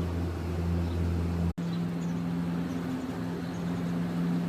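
A steady mechanical hum with no speech. It cuts out abruptly for an instant about a second and a half in, and a somewhat higher-pitched steady hum carries on afterwards.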